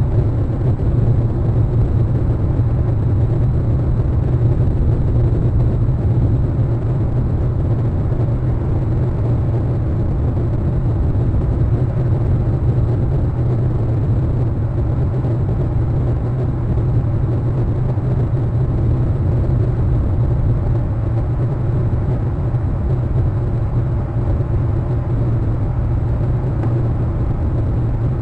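Steady low outdoor rumble, even and unbroken, with most of its weight deep in the bass.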